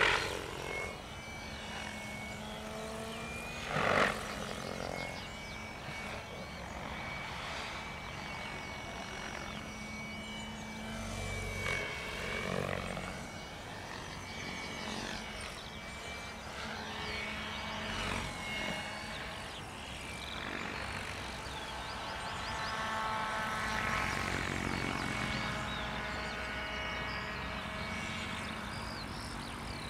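Electric Compass Chronos 700 RC helicopter flying aerobatics at a low 1400 rpm headspeed: a steady whine of motor and rotor whose pitch sweeps up and down as it manoeuvres. Two brief louder bursts come near the start, about four seconds apart.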